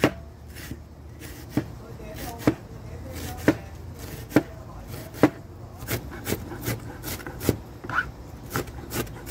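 A metal spoon knocking against a ceramic bowl as a chopped tomato, onion and cilantro salad is stirred: sharp clinks about once a second, turning quicker and lighter in the last few seconds.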